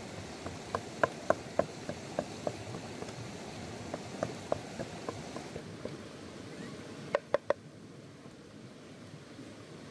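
Pestle pounding in a mortar, making the pepper sauce: quick, irregular sharp knocks over a steady hiss of octopus steaming on a hot rock. The hiss then drops away, and three sharp knocks come close together near the end.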